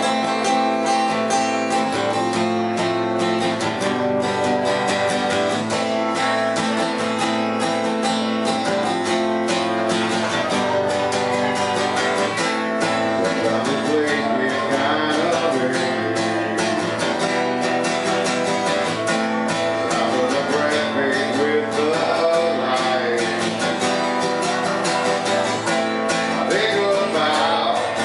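Acoustic guitar strummed steadily in a live solo performance, with a man's singing voice coming in at times.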